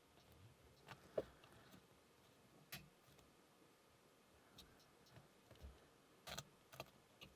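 Near silence broken by a few faint, scattered clicks of a lock pick working the pins of a Burg Wächter Karat padlock under tension.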